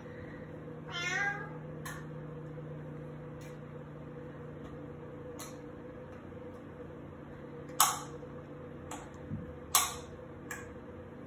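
A cat meows once about a second in. Sharp clinks of a utensil against dishes, cat food being doled out, come every second or two, the two loudest near the end, over a faint steady hum.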